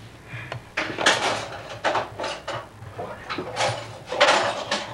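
Camcorder handling noise: irregular rustles, scrapes and knocks as the camera is fumbled against fabric and nearby objects.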